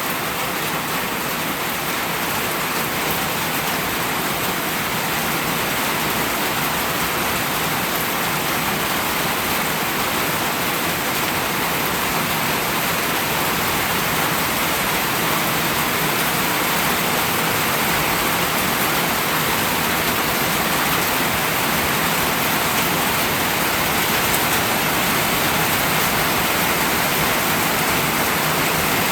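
Steady rain falling, an even wash of noise that grows slightly louder over the stretch.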